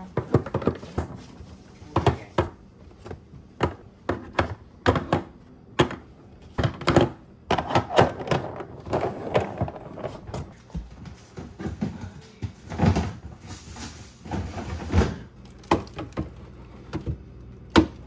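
Irregular knocks and clatter of hard plastic: clear plastic storage containers and an egg holder with its lid being handled and set down on a countertop and on fridge shelves.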